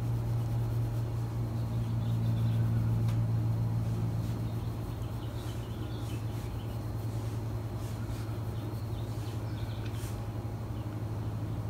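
A steady low hum with a few even pitch lines, like a motor or appliance running. Over it are faint soft scratches and ticks from a makeup brush being swept over the face.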